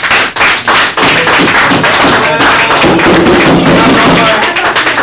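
Audience applauding loudly, many hands clapping fast.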